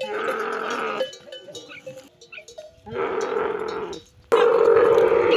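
Camels mating, giving rough, throaty roars: three loud bursts, about a second long each, the last and loudest starting about four seconds in.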